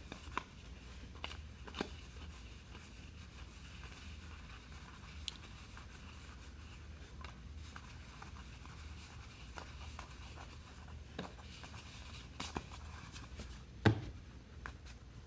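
Faint handling of trading card packs and cards: soft rustling and scattered sharp clicks and taps, the loudest about 14 s in, over a steady low hum.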